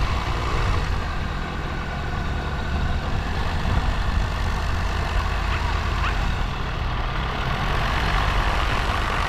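Light aircraft engine and propeller ticking over steadily as the microlight taxis on grass.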